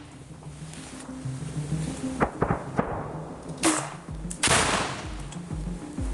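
Gunfire in woodland: several sharp rifle shots, loudest around three and a half and four and a half seconds in, the last trailing off into a long echo.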